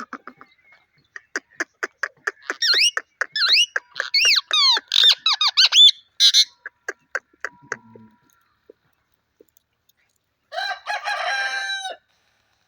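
A parrot clicking rapidly, then whistling in quick notes that glide up and down. Near the end it gives one harsh call about a second and a half long.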